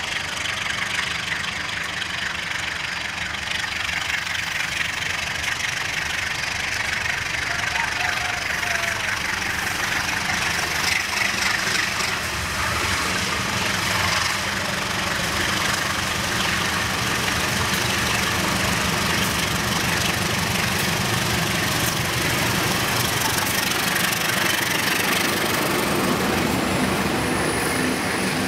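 Diesel locomotive hauling a train towards the listener, its engine running with a steady rumble that builds from about ten seconds in as it draws close.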